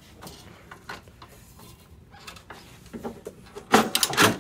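Metal drive chain of an aerator clinking against the sprocket teeth as it is worked back onto the sprockets by hand. There are scattered light clicks, then a louder clatter of several clacks near the end as the chain seats.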